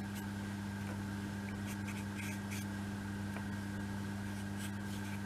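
A steady low electrical hum, with faint scattered clicks and scrapes of small model-kit pieces being handled and slotted together.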